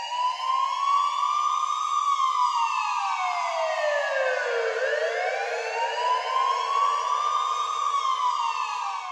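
Emergency-vehicle siren on a slow wail: the pitch climbs and holds high, sinks steadily to its low point about halfway through, then climbs and holds high again.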